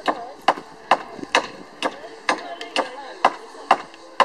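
Hammer driving nails into wooden decking boards: a steady run of sharp blows, a little more than two a second.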